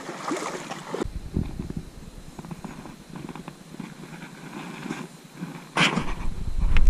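Soft rustling and small clicks as a hooked small largemouth bass is handled and unhooked by hand close to the microphone, with one loud knock about six seconds in, followed by a low rumble of wind or handling on the microphone.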